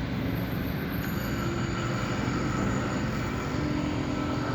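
Steady rumble of vehicle noise with no distinct events.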